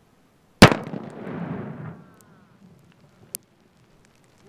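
Tannerite exploding target detonating when struck by an M1 Garand bullet: one sharp, very loud blast about half a second in, trailing off in a rolling rumble over a second and a half. A single sharp click follows near the end.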